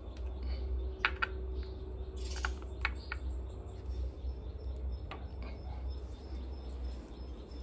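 Scattered light clicks and taps of objects being handled on a tiled altar, a few in quick succession near the middle, over a steady low hum.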